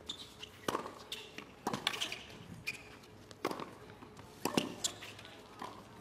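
Tennis rally on a hard court: racket strikes and ball bounces, sharp pops about once a second, beginning with a serve.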